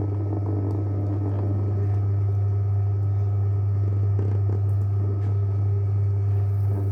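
JW Ratcliffe and Sons electric pottery wheel running with a steady low motor hum.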